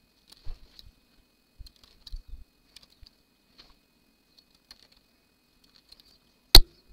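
Faint, irregular small clicks and ticks of a metal hand tool working stitches on the needles of a Brother 930 knitting machine's needle bed. One much louder sharp click comes near the end.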